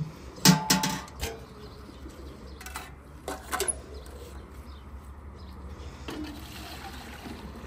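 Stainless-steel milk cans clanking as they are handled and set down: a cluster of ringing metal knocks about half a second in, and a few more knocks around three seconds in. Pigeons coo faintly.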